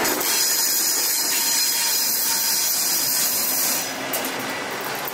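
Wagons of a track-laying maintenance train rolling past on the rails: a steady rushing noise of wheels on track, easing slightly about four seconds in.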